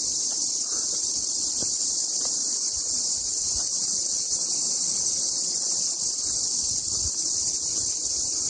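Steady, high-pitched insect chorus, the unbroken drone of cicadas or crickets in summer woodland.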